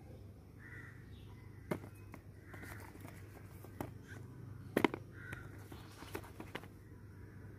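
Ivy gourds clicking and knocking against each other and a plastic basket as a hand sorts through them, with a sharp double knock near the middle. A bird calls faintly three times in the background.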